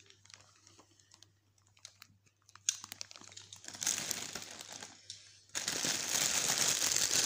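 Clear plastic cellophane packaging crinkling as it is handled. After a quiet start with a few faint clicks, it begins faintly a little over two and a half seconds in and is loud and continuous for the last couple of seconds.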